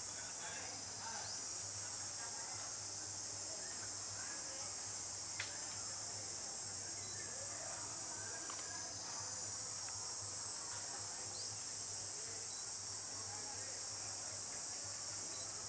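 Steady, high-pitched shrill drone of a forest insect chorus, unchanging throughout.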